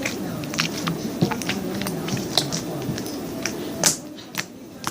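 Sticky homemade slime being squished and pulled by hand, giving irregular wet clicks and pops over a steady low background hum.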